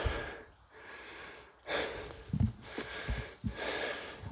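A person breathing heavily close to the microphone, several airy breaths in a row, with a few low thuds in between.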